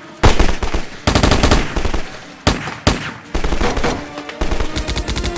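Rapid automatic gunfire in about five bursts of quick shots, one after another. Music tones come in faintly near the end.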